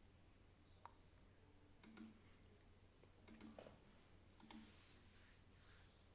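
Faint computer mouse clicks, a few scattered short clicks over near-silent room tone.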